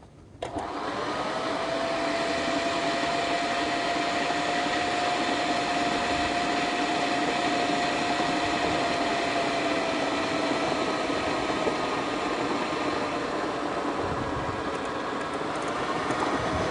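Kenwood food processor motor switching on about half a second in and running steadily at low speed with a steady whine, as water is poured through the feed tube onto flour and butter to make dough. Its pitch dips slightly near the end as the dough starts to clump and loads the blade.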